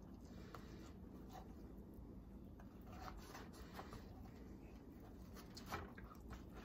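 Faint soft rubbing and a few small clicks of hands pulling apart hot rotisserie chicken meat.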